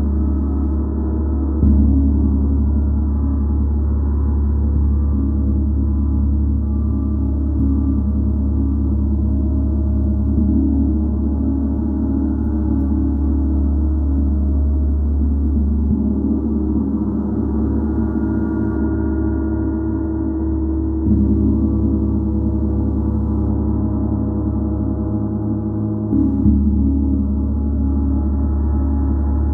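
Gong played continuously for sound healing. Many layered tones ring and shimmer without a break, with fresh soft strikes swelling the sound about two seconds in and again several times later.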